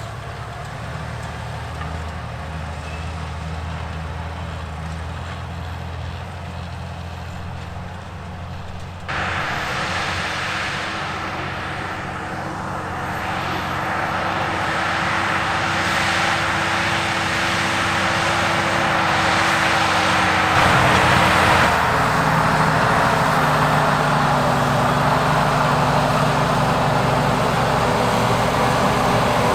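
Fendt 936 tractor diesel engines running steadily under load while pulling eight-furrow Lemken ploughs through the soil. The sound jumps abruptly louder about a third of the way in and keeps growing louder before levelling off.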